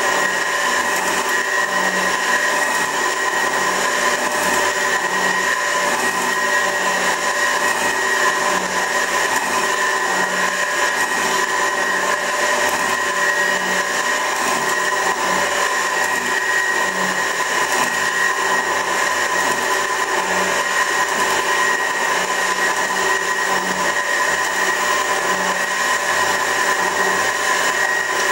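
A 24-inch Värnamo metal shaper running steadily through a cut, its drive giving a constant whine with a low pulse that recurs about every 1.7 seconds as the ram strokes back and forth.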